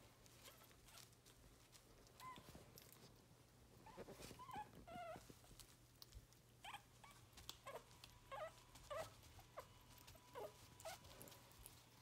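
Faint high squeaks and small whimpers from miniature schnauzer puppies at a bowl of wet puppy mash: a few short ones about four seconds in, then a run of them through the second half, over soft small clicks of eating.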